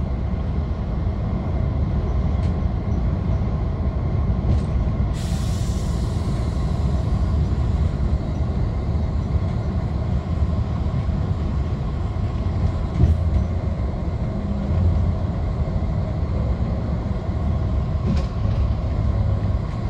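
Steady low road and engine rumble heard inside a moving Greyhound coach at speed, with a brief hiss about five seconds in.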